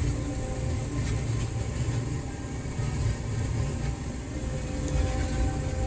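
Combine harvester's diesel engine running steadily.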